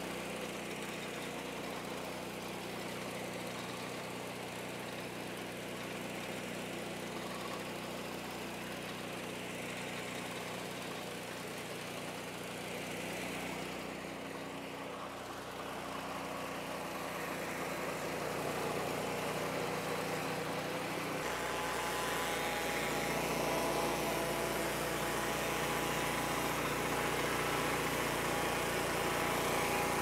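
Lucas Mill portable swing-blade sawmill running steadily, its engine driving the circular blade along a Douglas fir log as it saws. The sound grows a little louder and changes in tone about two-thirds of the way through.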